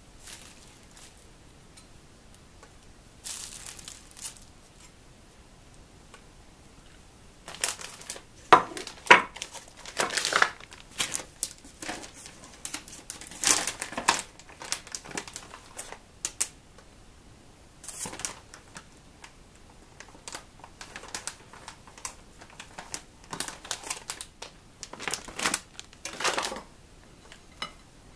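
Plastic food wrapping crinkling and rustling in irregular bursts as cheese and ham slices are taken out and laid on bread.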